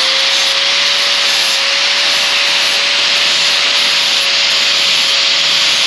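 Angle grinder with a 40-grit sanding pad running at full speed, lightly grinding the bevel of a steel lawn mower blade: a steady motor whine under a dense abrasive hiss.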